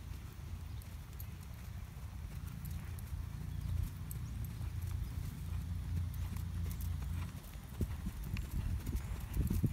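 Hoofbeats of a horse trotting under a rider on soft sand footing: dull, muffled thuds over a steady low rumble.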